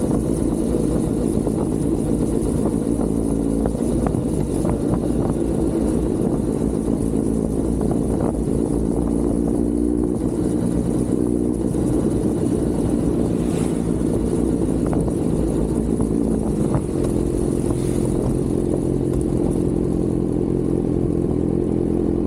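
Kawasaki Z900 inline-four engine running on the move, its pitch rising and falling with throttle and gear changes, then settling to a steadier, lower note in the last few seconds.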